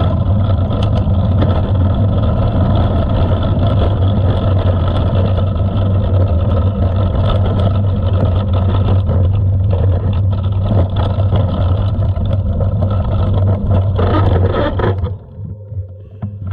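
Wind rushing over an action camera's microphone and tyres rumbling over a dirt and gravel path as a mountain bike rides downhill. The rumble drops off sharply about fifteen seconds in as the bike slows to a stop.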